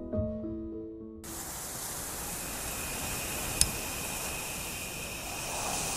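Soft piano music cut off about a second in, giving way to a steady airy hiss with one sharp click midway and a swelling whoosh near the end: the sound bed of an animated logo sting.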